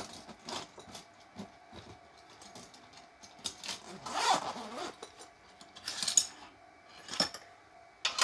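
Metal spanners clinking and rattling as they are handled to find the right size, with a few sharp knocks and brief rustles. Near the end a spanner is brought up to the nut on the threaded rod.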